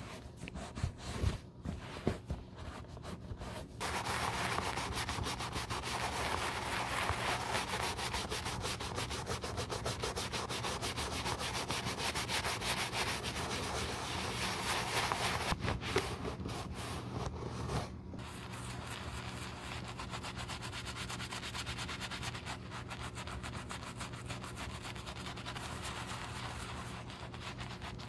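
A cloth rubbing over a leather loafer for the first few seconds, then a bristle brush scrubbing soapy lather into the leather in rapid scratchy strokes. The scrubbing is brisk and louder for a dozen seconds or so, then goes on more softly.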